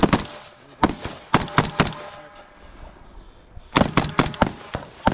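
Gunshots in two quick strings, about five shots a second or so in, then about five more near the end, each shot sharp with a short echo.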